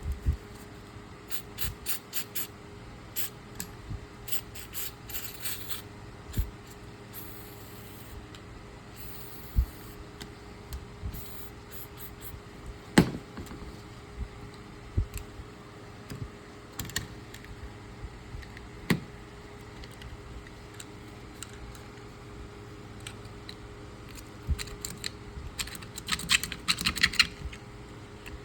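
Scattered light clicks and taps as a pocket knife and small items are handled on a work surface, with quick runs of clicking near the start and near the end and a few single sharper clicks between, over a faint steady hum.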